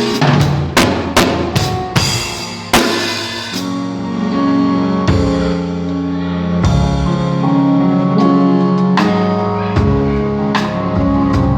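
Live band playing during a sound check: a drum kit plays a quick fill of hard hits in the first few seconds, over sustained chords that carry on with occasional drum strokes.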